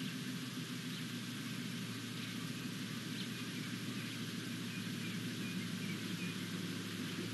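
Steady outdoor ambience from a wildlife camera's microphone: a constant low hum and hiss, with a few faint high chirps in the middle.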